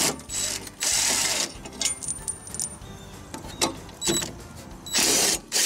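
Cordless drill spinning in short bursts to loosen and back out the blade bolt on a Honda lawn mower, with light metal clinks as the bolt and blade come free. Background music plays underneath.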